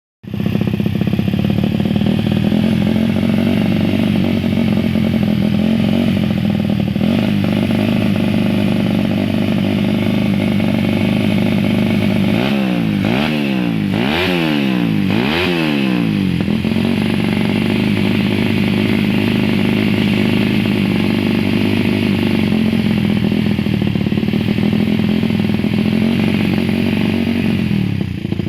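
Motorcycle engine idling steadily, blipped three times in quick succession about halfway through, each rev rising and falling back to idle.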